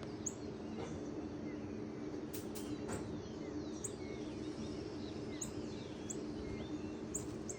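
Small birds chirping now and then, short high notes and quick sliding calls, over steady background noise with a low hum and a few sharp clicks.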